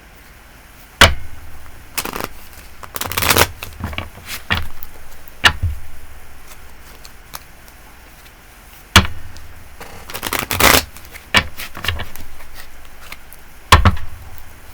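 A deck of tarot cards being shuffled by hand: four sharp card slaps and two longer riffling rustles, with quieter shuffling in between.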